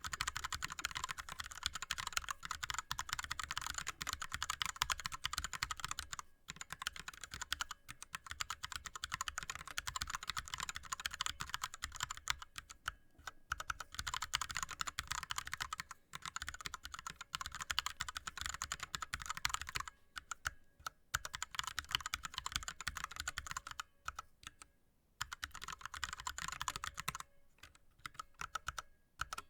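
Fast touch typing on an ErgoDox keyboard with linear Cherry MX Red switches and blank DSA keycaps: a dense, even stream of keystrokes, broken by a few brief pauses.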